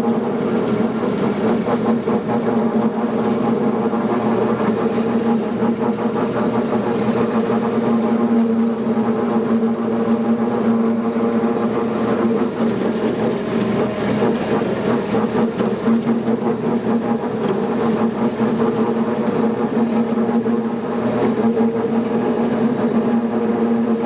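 Tractor engine running steadily as the tractor drives along, holding an even pitch throughout.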